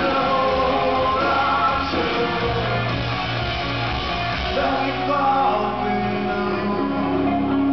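Live rock band playing a ballad with a male lead singer, the voice over sustained guitar and bass.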